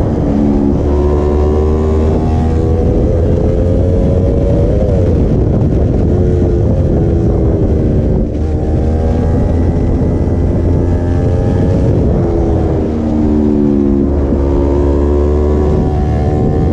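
Sport motorcycle engine running under way, its note climbing and dropping with the throttle and gear changes, with wind rush over the microphone.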